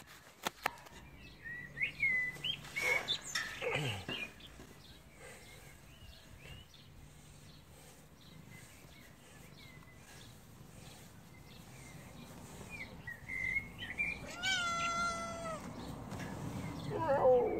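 Small black kitten meowing: several short mews in the first few seconds, one long, drawn-out meow about fourteen and a half seconds in, and a falling meow near the end.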